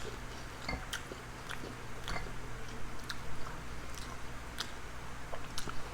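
Close-up eating sounds: chewing and biting food, with scattered small clicks and crackles.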